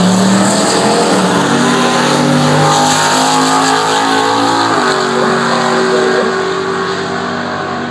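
Two drag-racing cars' engines at full throttle, accelerating away down the strip after launch. The engine pitch stays high and steps down at a gear change a little before five seconds in.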